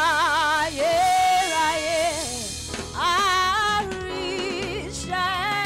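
Gospel choir song led by a soloist on a microphone, sung phrases with long held notes that waver with vibrato, over steady accompaniment.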